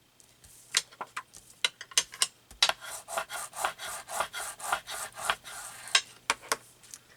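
Scissors cutting paper: an irregular run of quick snips with paper rustling between them.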